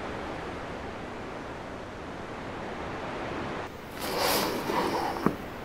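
Steady sea ambience of waves washing, fading in at the start. About two-thirds of the way through it gives way to a louder stretch of rustling and knocking that ends in a sharp click.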